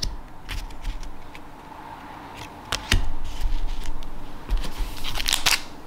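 Digimon trading cards being handled and laid down on piles on a playmat: soft slides and light taps, a sharper tap about three seconds in, and a quick cluster of clicks near the end.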